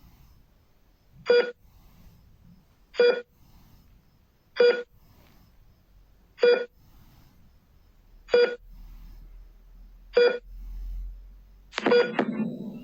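Hospital heart rate monitor beeping once per heartbeat: six short, identical beeps about two seconds apart. Near the end a louder, fuller tone sounds.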